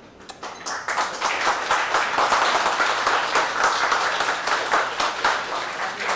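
A small group applauding, the clapping starting a moment in, quickly filling out and thinning near the end.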